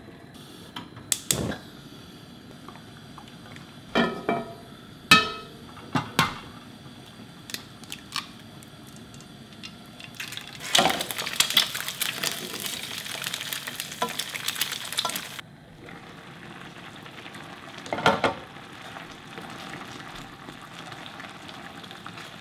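A wooden spoon stirs a bubbling pork-and-kimchi stew in a metal pan, knocking and scraping against it several times. Partway through, an egg frying in a nonstick pan sizzles loudly for about five seconds and then cuts off suddenly. After that, the quieter stew simmers with more stirring.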